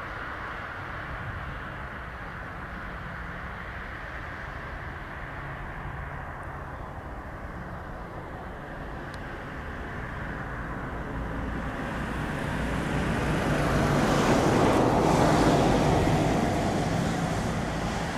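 Steady low engine rumble in the background, with a vehicle passing close by: its noise swells through the second half, peaks a few seconds before the end, then starts to fade.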